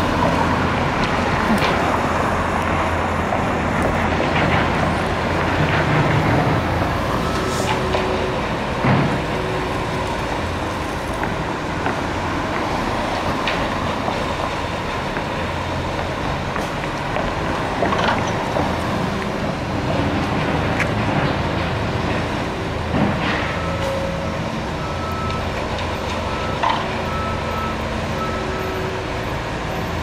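Busy street traffic and a heavy diesel truck engine running, with scattered sharp clanks from the construction work. A string of short beeps sounds near the end.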